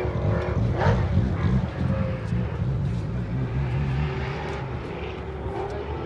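Vauxhall Firenza rally car's V8 engine running flat out, with a change in pitch about a second in, then slowly fading.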